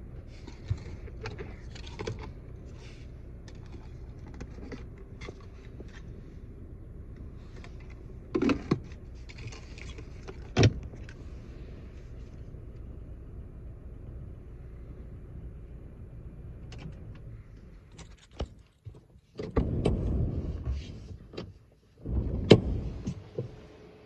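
Steady low hum inside a car cabin with scattered clicks and knocks from the camera being handled against the interior trim. Near the end the hum drops out, and louder rustling bumps and a sharp knock follow.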